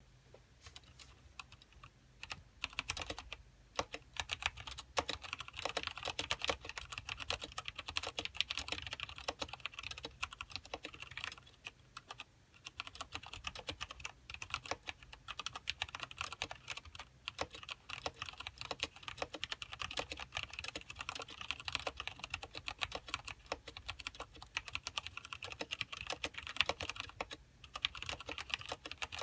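Typing on an OWLTECH KB108MT mechanical keyboard with Cherry MX Black linear switches and stock thin ABS keycaps: a fast, continuous run of keystrokes with a few brief pauses, the longest about twelve seconds in.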